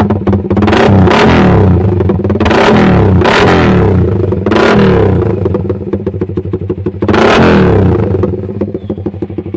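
Suzuki Raider 150 Fi's single-cylinder four-stroke engine through a Daeng Sai 4 aftermarket exhaust, blipped four times from idle: the pitch rises and falls with each rev, with a rapid putter at idle in between and near the end.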